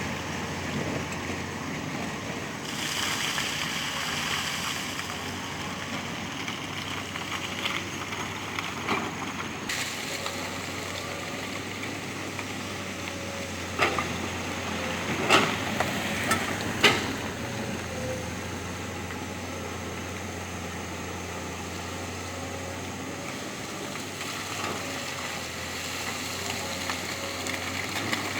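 Heavy construction machine's diesel engine running steadily, with a few sharp clanks in the middle.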